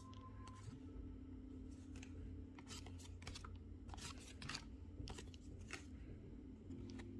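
Pokémon trading cards being slid and flipped against one another in the hand: a run of short papery rustles and snaps, most of them from a little before the middle to near the end, over a faint steady low hum.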